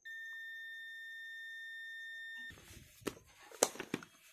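DT9205A digital multimeter's continuity buzzer giving one steady beep for about two and a half seconds, then cutting off sharply: the probes are across an unbroken PCB track. After it come handling noises with a few sharp clicks, the loudest about three and a half seconds in.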